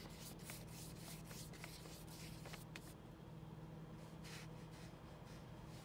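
Faint soft brushing of a wet watercolour brush over paper, a series of light scratchy strokes, over a low steady electrical hum.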